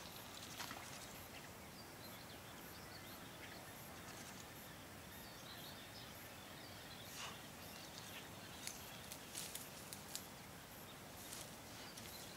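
Quiet outdoor ambience: a steady background hiss with faint high bird chirps, and a few short sharp clicks in the second half.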